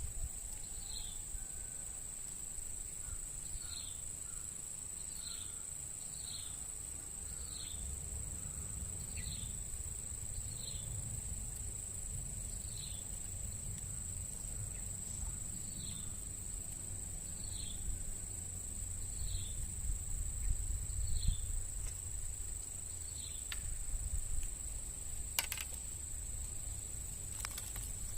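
Insects, crickets or similar, keeping up a steady high-pitched drone. Over it comes a short falling chirp, repeated about once a second, that stops near the end.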